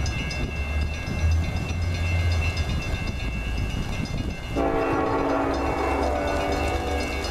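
Approaching diesel freight locomotive rumbling, then about four and a half seconds in its air horn starts suddenly and is held as one long chord. The horn is on Norfolk Southern train 20K's lead unit, the Illinois Terminal heritage locomotive, an EMD SD70ACe.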